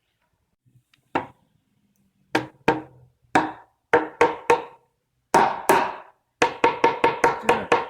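A series of sharp, ringing knocks on wood as a freshly cut wooden window-sill board is tapped into place to test its fit. There are about sixteen knocks: spaced out at first, then coming faster near the end.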